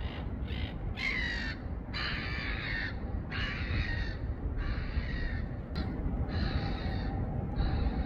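Crow cawing again and again, a string of harsh calls each about half a second to a second long, over a steady low rumble.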